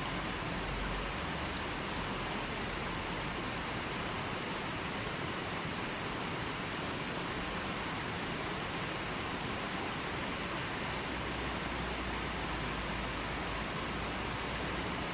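Steady rushing water: an even, unbroken hiss that does not change.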